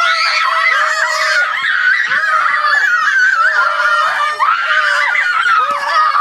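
A child screaming in long, high, wavering wails that go on without a break.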